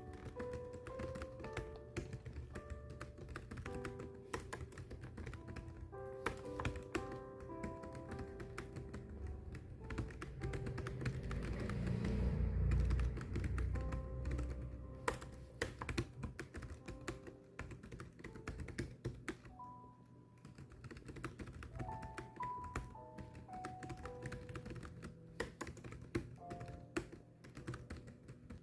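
Fast, continuous typing on keys, a dense patter of clicks, over soft background music of held melodic notes. A low swell rises and fades around the middle and is the loudest part.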